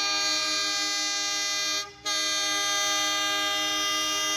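A train horn sounding a chord of several steady notes: one blast of about two seconds, a brief break, then a second blast that runs on.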